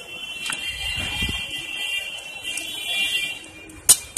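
A steady, high-pitched alarm-like tone of several close pitches sounds throughout over street noise, with a sharp metal clack near the end from the hand-held lime squeezer.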